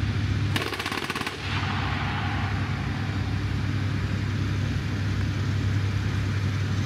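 A short burst of rapid machine-gun fire lasting under a second, about half a second in, from an armoured vehicle's coaxial turret machine gun. Under it, the vehicle's heavy diesel engine runs steadily throughout.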